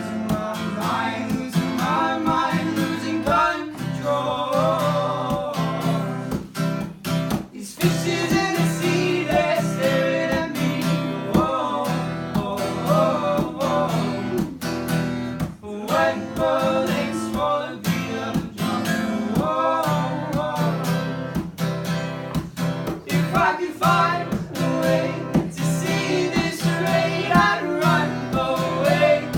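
Acoustic guitar strummed steadily while a voice sings a song.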